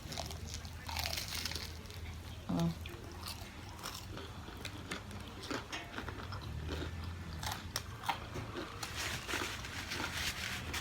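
Close-miked chewing and biting of a crunchy Flaming Hot Funyuns cheese dog, with many short sharp crunches. A brief hum of the eater's voice about two and a half seconds in.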